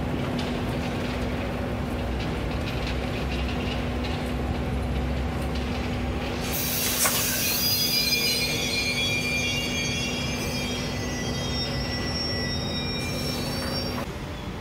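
Passenger coaches of an SJ train rolling past on rails with a steady low hum and rumble. About six seconds in, the wheels begin squealing in several high, wavering pitches; the hum and squeal stop abruptly near the end.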